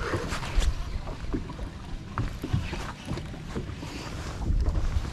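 Wind buffeting the microphone over choppy water lapping at a bass boat's hull, with scattered light knocks.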